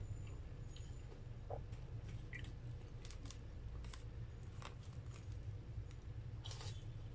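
Close-miked chewing of a breadcrumb-coated fried corn dog, with scattered crisp crunches and a louder crunchy bite about six and a half seconds in. A steady low hum runs underneath.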